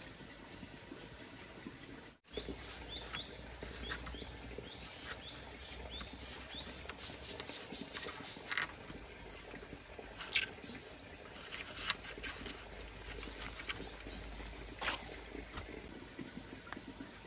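Outdoor ambience with a steady hiss: a quick run of short, high chirps falling in pitch a few seconds in, then several sharp knocks or taps, the loudest two about a second and a half apart.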